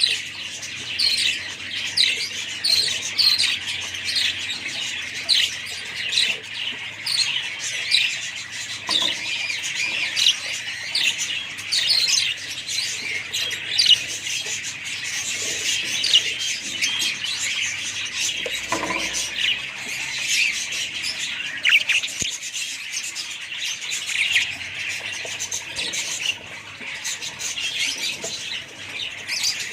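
A flock of budgerigars chirping and chattering all at once: a dense, continuous din of many short, quick, overlapping calls.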